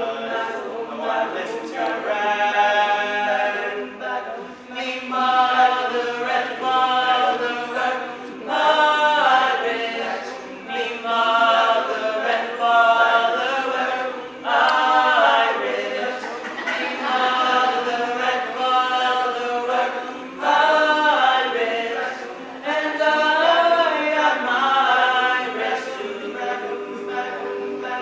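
All-male a cappella group singing in several-part harmony, voices only with no instruments.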